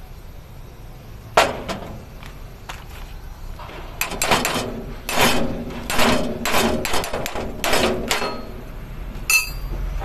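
Hand tools and metal parts knocking and clanking during truck repair work: a sharp tap about a second in, then a run of quick metal knocks and rattles, and a short ringing clink near the end.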